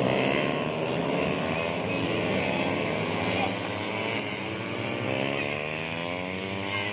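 Several 150cc four-stroke underbone race motorcycles running at high revs, their overlapping engine notes rising and falling in pitch as they accelerate and pass.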